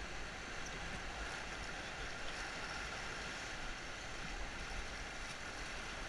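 Steady rushing of river current and whitewater around the raft, an even hiss with no paddle strokes.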